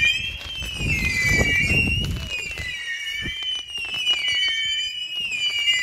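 Firework letting out a continuous high whistle that slowly wavers in pitch, with crackling pops over it. A low rushing noise swells between about one and three seconds in.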